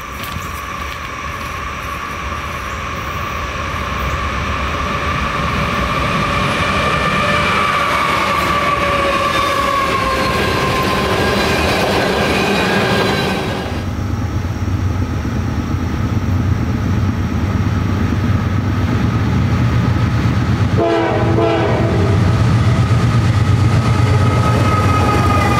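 A Norfolk Southern diesel freight locomotive sounds its multi-chime air horn in a long blast whose pitch drops as it goes by, followed by the rumble of tank cars rolling past on the rails. About halfway through it cuts to another freight's lead diesel locomotives passing close, a loud low engine rumble, with the horn sounding again near the end.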